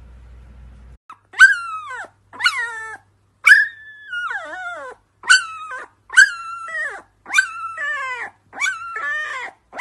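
Husky puppy howling: a run of about eight short cries, each falling in pitch, about one a second, starting about a second in.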